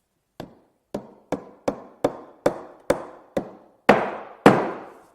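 A glued wooden piece being knocked down into its joint to seat it: about ten sharp blows, roughly two a second, the last two the heaviest.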